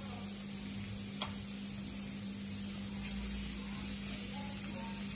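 Curry leaves, garlic, green chillies and ginger sizzling in hot coconut oil in an aluminium kadai, a steady hiss as they fry while stirred with a wooden spatula, over a steady low hum.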